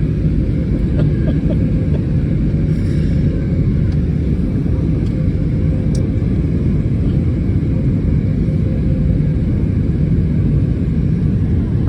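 Airbus A320neo cabin noise in flight on approach: a steady low rumble of engines and airflow with a faint steady hum, and a couple of faint ticks.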